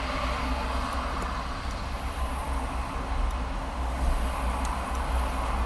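Steady rumble and hiss of motorway traffic passing in the background.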